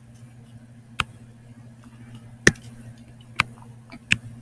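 Stylus tapping on a touchscreen while handwriting: four sharp, separate clicks spread over the few seconds, with a few fainter ticks between them, over a faint steady low hum.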